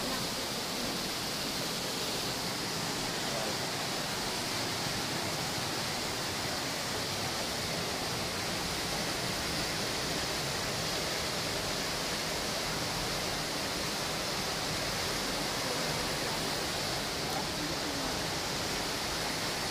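Düden Waterfalls: many curtains of water pouring into a pool, a steady, unbroken rushing.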